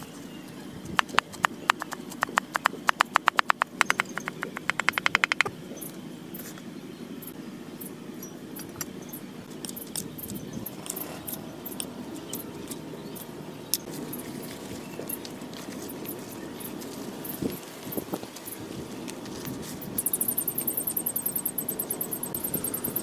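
A cleaver chopping garlic on a wooden chopping block in quick runs of sharp knocks, several a second, stopping about five seconds in. Then a spoon mixing food in a ceramic bowl with scattered light clinks, and near the end a high, pulsing buzz starts.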